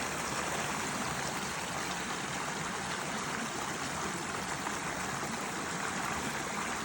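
Small creek's water running, a steady rushing hiss without a break.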